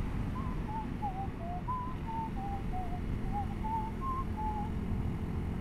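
Someone whistling a tune of about a dozen short notes that hop up and down in pitch. Underneath is the steady low running of a Honda CRF250L's single-cylinder engine, mixed with wind noise.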